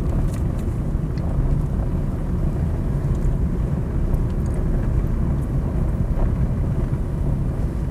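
Car driving along a road with a steady low rumble of engine and tyres.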